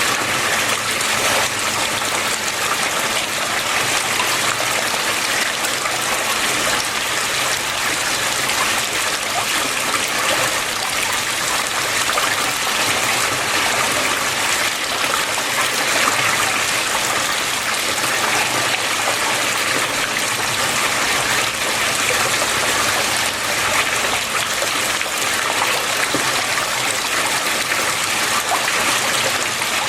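Water flowing steadily, a constant rushing trickle with no pauses or changes.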